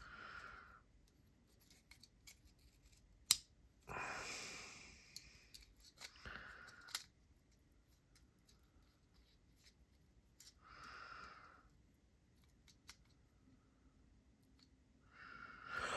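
Quiet handling of small folding-knife parts and tools: scattered small sharp clicks, with a louder click about three seconds in, and a few soft rushing sounds of about a second each.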